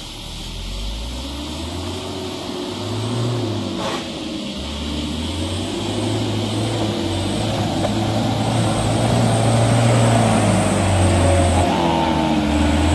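Diesel engine of a Mitsubishi light dump truck working hard as it drives through deep mud. It grows steadily louder as the truck comes closer, and its note rises and falls with the throttle.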